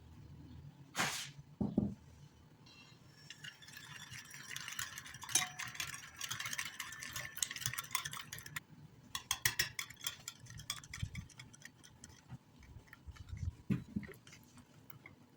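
A kitchen utensil clinking and scraping against a bowl as ingredients are stirred together. It comes as a dense run of rapid clicks from about three to nine seconds in, with a few single knocks before and after.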